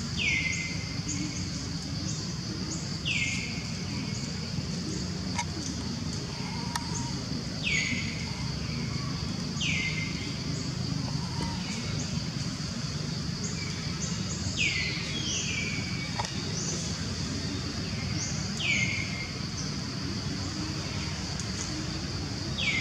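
A bird repeating a short, falling whistle every few seconds, with fainter high chirps between, over a steady high-pitched insect drone.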